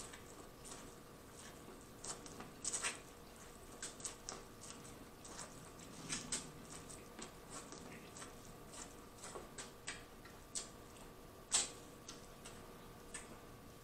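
Boiled corn on the cob being bitten and chewed: faint, irregular crunching clicks as the kernels are bitten off the cob, a few of them sharper than the rest.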